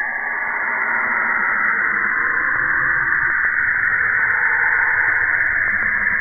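Saturn's radio emissions, recorded by a NASA spacecraft and turned into sound: a dense, steady static-like hiss with faint whistling tones wavering beneath it.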